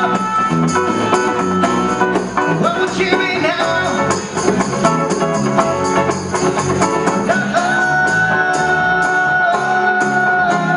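Live band playing a bluesy jam: harmonica over acoustic and electric guitars and hand drums. A long held note comes in about three-quarters through.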